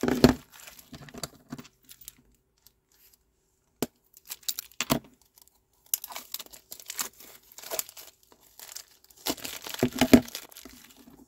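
Clear cellophane wrap being peeled and crumpled off new plastic ink pad cases: irregular crinkling and tearing in short spells, with a few sharp clicks of the hard plastic cases and a quiet pause a couple of seconds in.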